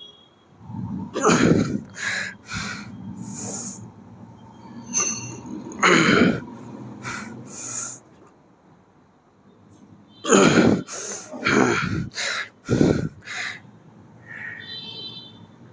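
A man's hard, forced breathing while pressing weight on an incline chest press machine: short, sharp puffs of breath, some with a voiced grunt, coming in two clusters with a quieter stretch of a couple of seconds in the middle.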